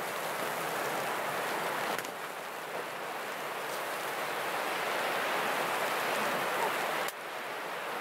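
Wind rushing steadily through a snowy spruce forest during a snowfall, an even hiss that shifts abruptly in level twice.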